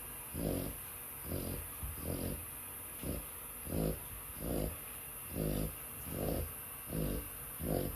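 Dog snoring in its sleep: a run of short, regular snores, about ten of them, a little more than one a second.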